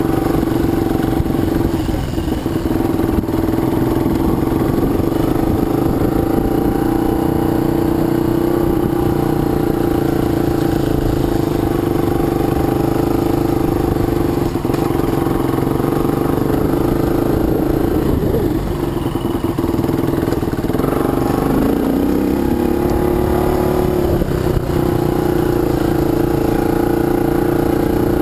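Dirt bike engine running steadily while riding a trail, heard close up from the bike. The engine note drops briefly about 18 seconds in and rises again a few seconds later.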